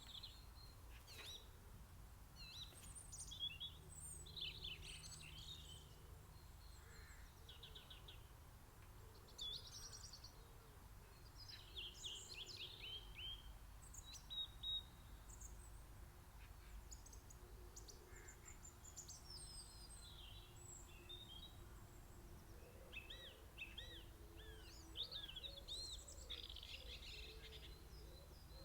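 Several songbirds singing and calling over one another, faint, in short overlapping chirps and trills, over a steady low background rumble.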